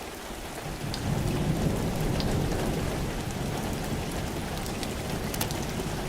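Crackling fireplace fire: a steady hiss with a low rumble that grows about a second in, and a few faint scattered pops.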